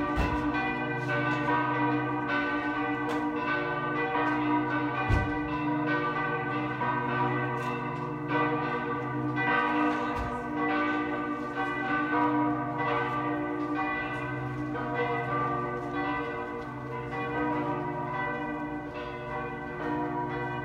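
Church bells ringing a peal: several bells struck over and over, each strike renewing a dense cluster of overlapping tones that hum on between strokes.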